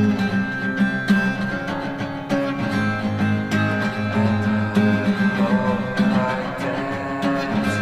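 Instrumental passage of a lo-fi song: strummed acoustic guitar over steady sustained low notes, with no singing.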